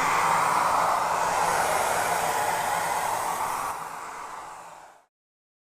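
Miele Compact C1 canister vacuum running with its hard floor nozzle, a steady rush of motor and suction air. It fades away about four seconds in and cuts off to silence.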